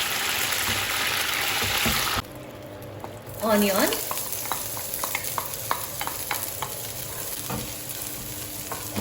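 Hot oil sizzling hard in a frying pan, cutting off abruptly about two seconds in; afterwards a lighter sizzle with repeated sharp clicks of a utensil stirring and tapping in the pan.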